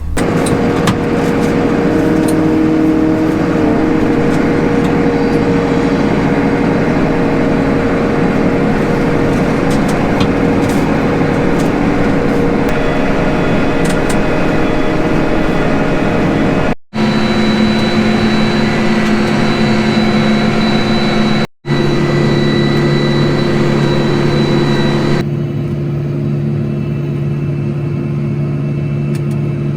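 Farm tractor's diesel engine running steadily under load while pulling a tillage implement across a field. Twice the sound breaks off for an instant and comes back at a different engine pitch, and it changes tone again near the end.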